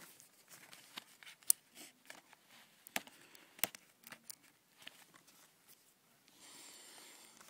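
Fingers picking and scratching at the plastic shrink-wrap and tape on a Blu-ray case: scattered small clicks and crinkles, then a steady rustle over the last second or so.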